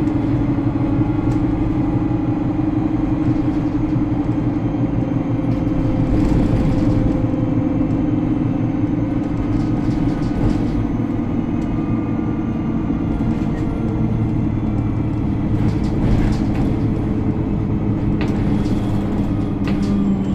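Alexander Dennis Enviro 300 single-deck bus on the move: a steady engine and road rumble with a strong low hum, faint whining tones that drift slightly in pitch, and occasional small rattles.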